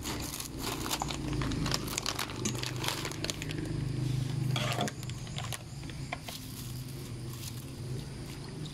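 Scattered light clicks and crinkles from scissors snipping and handling a plastic agar-agar packet, over a faint steady low hum that fades about five seconds in.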